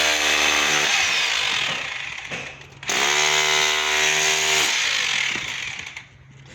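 Power grinder cutting into a masonry wall, run twice: each run starts abruptly, dips in pitch as it bites, holds, then dies away.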